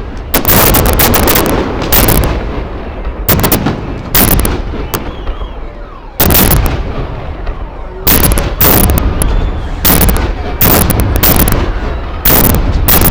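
Fireworks bursting overhead: about a dozen loud bangs at uneven intervals, some in quick pairs, with a continuous rumble between them.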